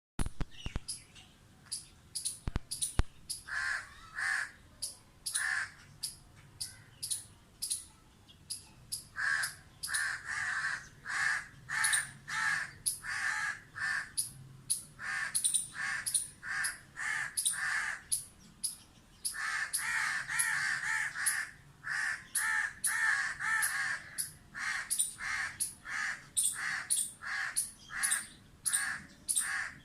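Birds calling in long runs of short repeated calls, often two or three a second, with brief pauses between runs.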